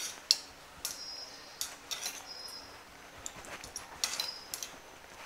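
Metal spoon scraping and clinking against the inside of a stainless steel saucepan, mixing butter cubes into reduced onion and vinegar, in irregular strokes with a faint metallic ring on a few of them.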